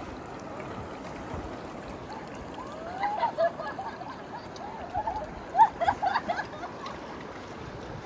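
Steady rush of river water, with distant voices calling out now and then in the middle.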